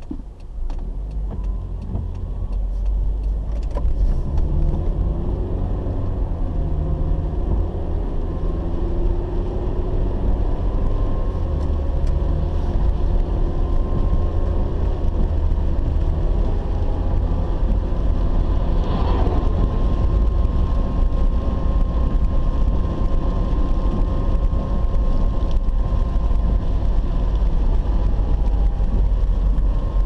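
Car driving on a wet road, heard from inside the cabin: a steady low rumble of engine and tyres that grows louder over the first few seconds as the car picks up speed, then holds.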